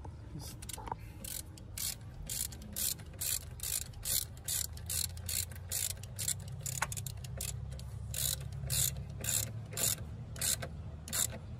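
Hand ratchet driving a bolt down. Its pawl clicks in short bursts on each back-swing, about two bursts a second, with an even rhythm throughout.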